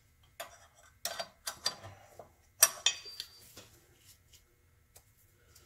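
Metal hand tools clinking and tapping against engine parts: a string of short, light metallic clicks, the loudest a little over two and a half seconds in, thinning out to faint ticks.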